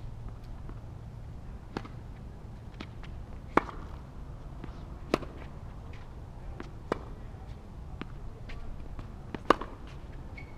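Tennis rally on a hard court: sharp pops of racquets striking the ball and the ball bouncing, about one every one and a half to two seconds, with a louder hit near the end. A steady low rumble runs underneath.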